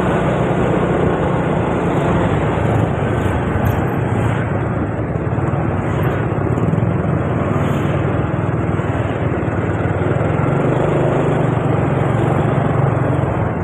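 Steady engine and road noise of a motor scooter riding at a constant pace, heard from the rider's seat, with other motorcycles and cars in the surrounding traffic.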